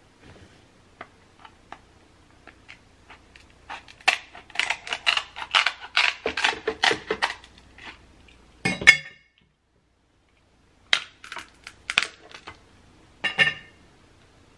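Kitchen shears snipping through the hard shell of a sauced king crab leg: a quick run of crunching snips and cracks, a single loud crack near the middle, then a few more cracks of shell later on.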